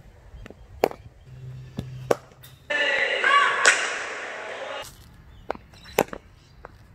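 Sharp knocks of a cricket ball being played off the bat in batting nets, a second or two apart, with about two seconds of louder, echoing indoor-hall noise in the middle.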